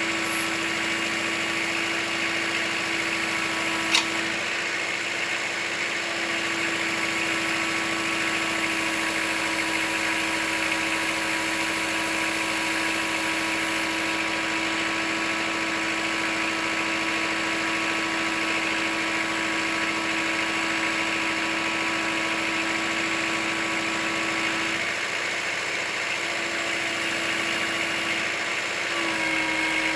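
Kubota L4600 tractor's diesel engine running steadily under the BH92 backhoe work, its note easing briefly twice. There is one sharp click about four seconds in.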